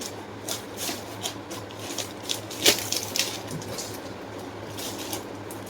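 Rustling and handling of gift clothes and their wrapping as they are taken out and unfolded: a run of short, irregular rustles, the sharpest about halfway through. A steady low fan hum runs underneath.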